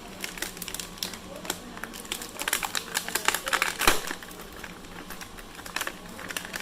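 Quick, irregular clicks and rattles of hard plastic toy parts being handled, thickest around the middle, with one sharper click about four seconds in.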